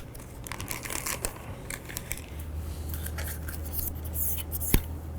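Cotton swab scraping and rubbing in the crevices of a rifle receiver: a run of small, dry scratches and light clicks.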